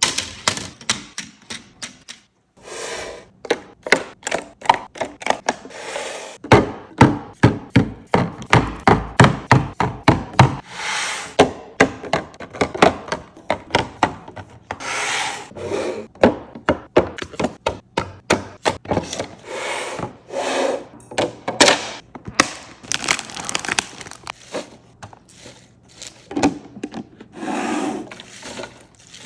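Food containers and items being set down and slid into place on refrigerator shelves and bins: many sharp knocks and clatter, with scraping and rubbing between. A fast run of knocks comes about a third of the way in.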